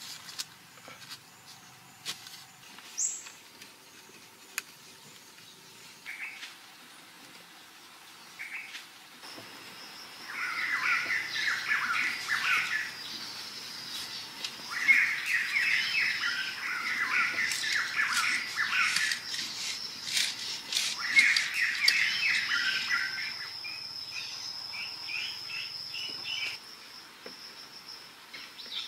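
Birds calling in fast runs of chirps, three long bouts, over a steady high insect trill that starts about a third of the way in. A few light taps and clicks come in the first seconds.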